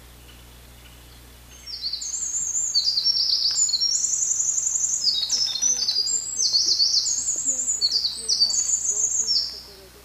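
Eurasian wren singing one long song of rapid high trills and warbles, starting about a second and a half in and stopping just before the end.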